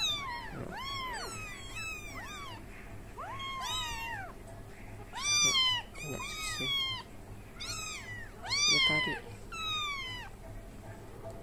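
Several young kittens mewing over and over, a rapid run of high calls that rise and fall, about one or two a second. The loudest come around the middle and near the end. These are hungry kittens crying for milk at a feeding bottle.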